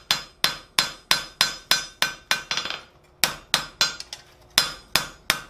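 Hand hammer striking hot steel flat stock on an anvil, about three blows a second, each with a short metallic ring, broken by two brief pauses. The flat face of the hammer is smoothing and flattening the hot steel.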